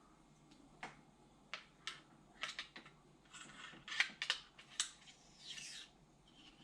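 Handling noise from the parts of an airsoft rifle: a scatter of sharp, irregular clicks with a little light rubbing in between, the loudest clicks about four seconds in.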